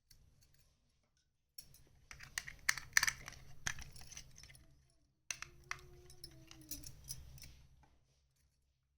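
Small plastic toy kitchen pieces being handled and set down: a run of light clicks and clinks, broken by short stretches of silence.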